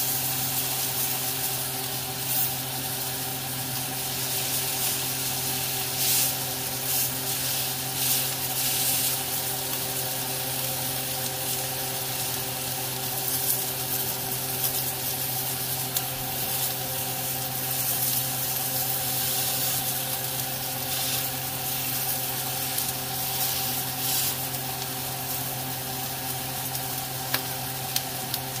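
New York strip steaks sizzling in a hot grill pan: a steady hiss with scattered crackles of spitting fat, over a steady low hum. A couple of sharp clicks come near the end.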